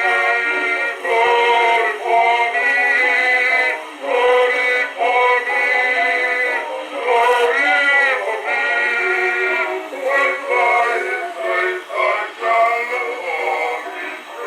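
Acoustic Zonophone Cinch gramophone playing an early single-sided Zonophone record of a male voice singing a gospel hymn. The sound is thin, with no bass.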